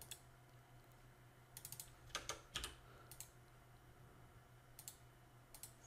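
Faint computer mouse and keyboard clicks, a few quick ones in two short clusters, over a low steady hum.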